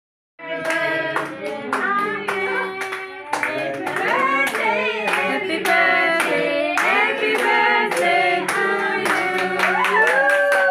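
A group of people singing a birthday song together, clapping in time about twice a second, ending on one long held note near the end.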